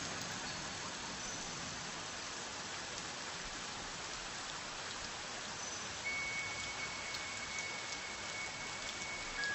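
Steady, even rain falling. A faint steady high tone enters about six seconds in.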